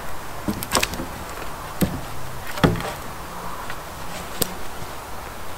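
Irregular wooden knocks and clunks, four or so over a few seconds, the loudest about two and a half seconds in, as wooden poles and logs are handled and knocked together, over a steady background hiss.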